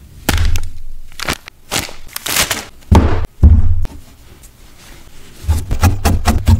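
Dry wool roving being pulled apart and handled, with loud rustling, tearing strokes and a few soft thumps. About five and a half seconds in, a quick steady run of soft taps starts as the wool is worked on a foam felting pad.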